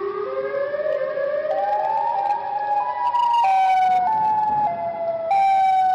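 Siren Head creature's sound effect: a siren wail of several tones at once that slides upward and then jumps in steps between pitches. It grows louder after about three seconds.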